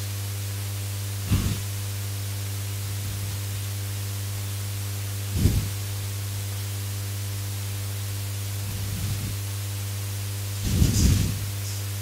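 Steady electrical hum and hiss from a headset microphone, broken by a few brief soft noises.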